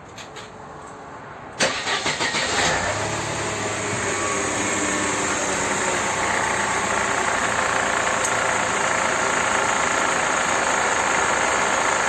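Mercedes M111 four-cylinder petrol engine being started: the starter cranks briefly about a second and a half in, the engine catches, and it settles into a steady idle.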